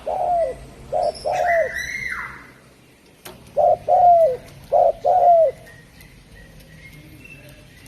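Spotted dove (derkuku) cooing: two phrases, each of two low coo pairs. Every pair is a short note followed by a longer one that dips in pitch at its end. A higher, drawn-out call from another bird comes about a second and a half in, and a single sharp click about three seconds in.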